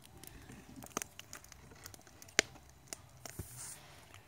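Wood fire crackling in a steel campsite fire ring, with sharp pops at irregular intervals.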